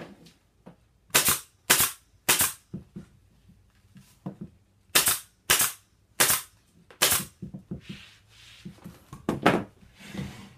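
Pneumatic upholstery stapler firing staples through bonded polyester padding into a wooden chair frame: sharp snaps in quick groups, three about half a second apart, then four, then one or two more near the end.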